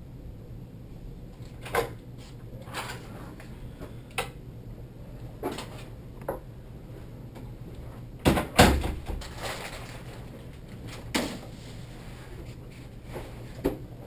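Scattered knocks and clunks of an office door and a person coming into the room, the loudest and deepest thump about eight and a half seconds in. A steady low hum runs underneath.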